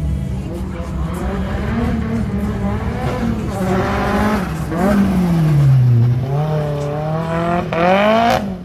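Drift car's engine revving hard as it slides past, its pitch dipping and then climbing, with tyres squealing. A quick rising rev comes near the end.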